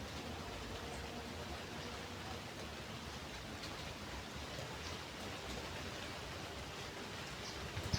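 River water flowing: a steady, even rush, with a few faint short high chirps over it.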